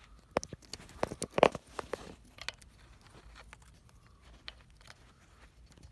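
Sharp plastic clicks, cracks and rustling as the third-row seat latch parts of an MDX are pulled loose by hand. The clicks come thick for the first two seconds, loudest about a second and a half in, then thin out to a few scattered clicks.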